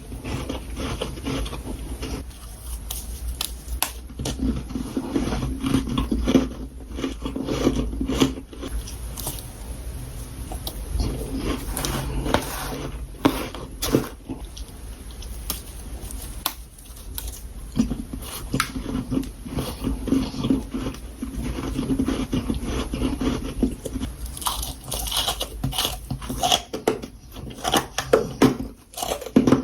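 Close-up crunching and chewing of freezer frost, with short crisp bites and crunches coming in quick clusters.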